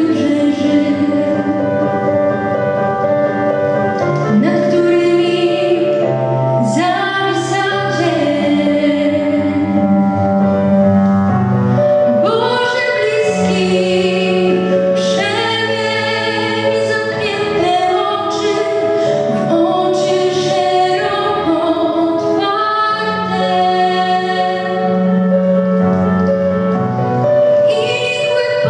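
A young woman singing solo into a handheld microphone, over an instrumental accompaniment of long held low notes.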